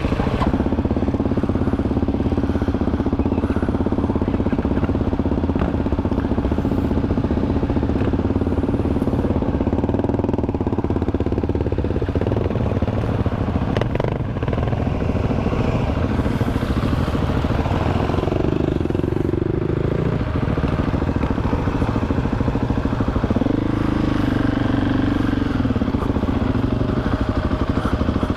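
Single-cylinder 690 dual-sport motorcycle engine running under varying throttle on a rough dirt trail, with the revs rising briefly twice in the second half.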